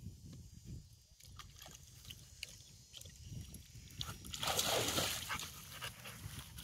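A dog in the shallows at a grassy riverbank, water sloshing and splashing around it, with a louder burst of splashing about four and a half seconds in.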